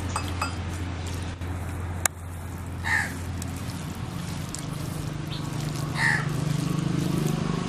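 A crow cawing twice, about three seconds apart, over a steady low hum, with the wet squish of hands kneading marinated fish pieces in a steel bowl.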